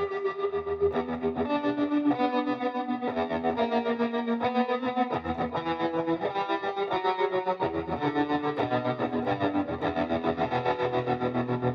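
Electric guitar played through effects pedals with distortion, a run of sustained notes and chords changing every second or so, with a quick, even pulsing in the loudness.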